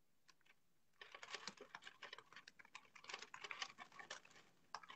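Faint rapid typing on a keyboard, a quick run of key clicks starting about a second in and stopping about four seconds in, with one more click near the end.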